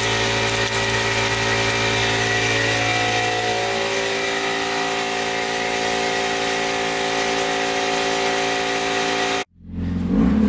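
A machine motor running steadily at one constant pitch, cut off suddenly about nine and a half seconds in.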